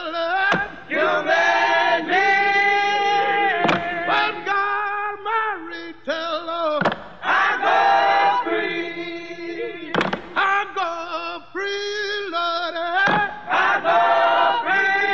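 Wordless chanting in long, held, wavering notes, phrase after phrase, with short breaks roughly every three seconds.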